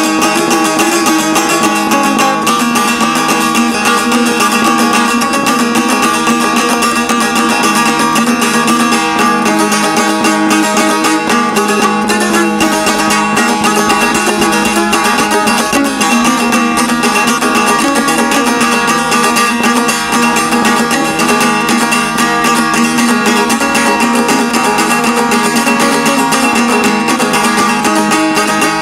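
Šargija, the long-necked Bosnian folk lute, played solo with quick, steady plectrum strokes: a kolo dance tune picked over a steadily held low note.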